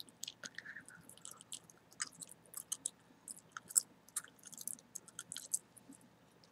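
Close-miked chewing gum: wet mouth clicks and smacks come irregularly, several a second, with one sharper smack a little before four seconds in.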